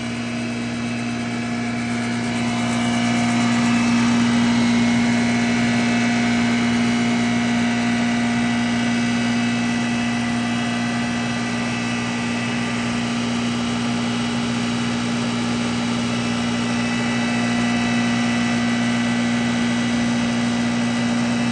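Rice husk grinding machine running steadily while husks are fed into its hopper: a constant mechanical hum with one strong low tone over an even grinding noise, swelling slightly a few seconds in.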